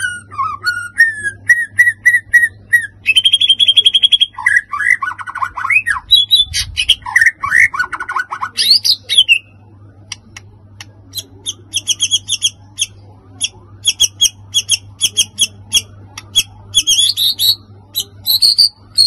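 White-rumped shama (murai batu) singing a long, varied song in a fired-up ('emosi') state. Whistled glides and a fast trill come in the first half, then quick runs of short, sharp repeated notes fill the second half.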